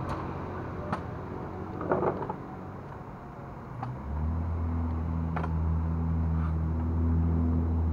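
Low, steady engine hum that comes in about halfway and holds one pitch, over a general outdoor background with a short noisy rustle near the start.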